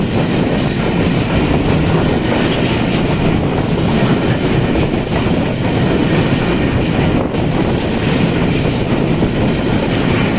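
Flat wagons of a container freight train rolling past close by, their wheels running on the rails with a steady, loud, continuous noise.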